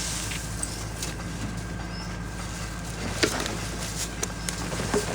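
Steady low hum and outdoor background noise at a street-food stall, with a few sharp clicks and knocks from the vendor handling utensils and packaging as a rice ball is made: the first about three seconds in, more near the end.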